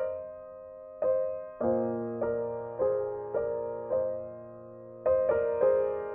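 Slow solo piano background music: notes and chords struck about every half second and left to ring out, with brief pauses near the start and again past the middle.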